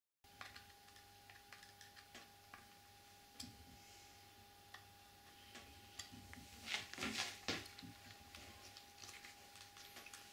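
Small screwdriver clicking and scraping on the screws and wooden end plate of an antique English concertina as the end is screwed back on. A louder cluster of handling clatter comes about seven seconds in, over a faint steady hum.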